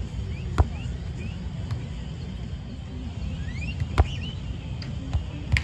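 Beach volleyball struck by hand in a rally: sharp slaps about half a second in, about four seconds in (the loudest, an overhead pass), and just before the end, with a few lighter taps between. A steady low rumble and short high chirps run underneath.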